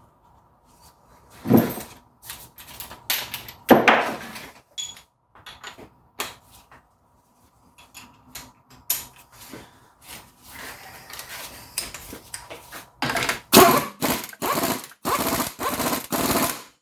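Irregular knocks, clicks and short rattles of hand work with tools and metal parts, growing denser and louder in the last few seconds.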